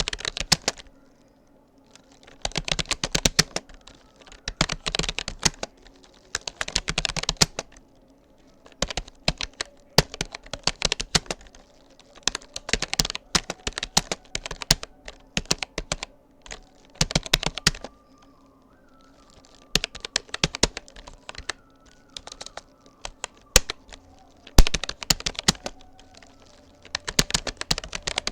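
Typing on a Rapoo computer keyboard at around 37 words per minute: quick runs of key clicks in bursts of a few seconds, broken by short pauses.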